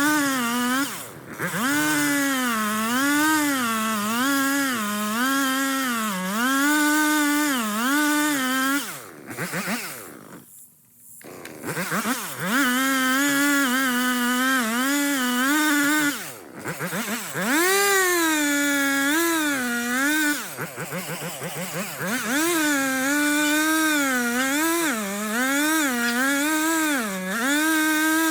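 Two-stroke gas chainsaw running at full throttle while cutting into a tree, its pitch sagging and recovering about once a second as the chain loads in the wood. Around ten seconds in it drops off nearly to quiet, then revs back up and keeps cutting, with a few other short dips.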